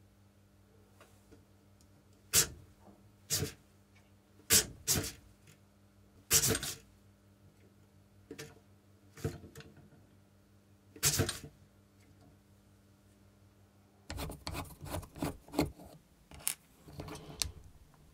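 Half a dozen sharp, separate clicks over a steady low electrical hum from the bench test setup. About fourteen seconds in, the hum stops and a quick run of small clicks and scraping follows as a small screwdriver pries open the grey plastic case of a Lego Power Functions Medium Motor.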